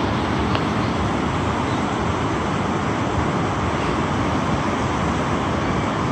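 Steady rushing roar of river rapids, an even wash of white water with no break.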